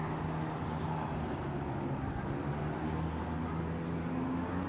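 An engine running steadily at low revs, a low hum made of a few steady pitches that shift slightly near the end.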